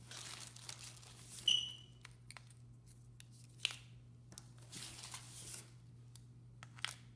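Plastic packaging crinkling and rustling as hands handle small plastic jars of acrylic nail powder, with a couple of sharp clicks, the loudest about a second and a half in.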